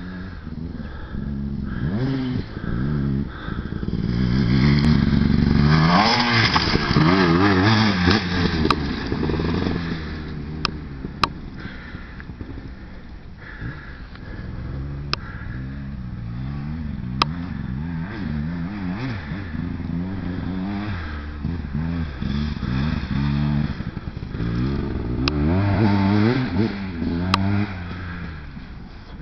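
Enduro dirt bike engines revving up and down as the riders shift gears and work across rough ground. They are loudest about four to ten seconds in and again near the end, with a few sharp clicks over them.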